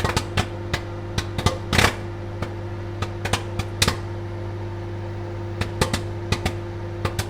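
Popcorn kernels popping in a microwave oven: sharp, irregular pops, bunched in the first couple of seconds and thinning out later, over the oven's steady hum.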